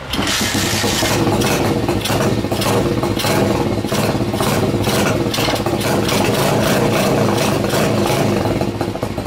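Tao Tao DBX1 140cc pit bike's single-cylinder four-stroke engine starting suddenly and running loudly, easing off slightly near the end.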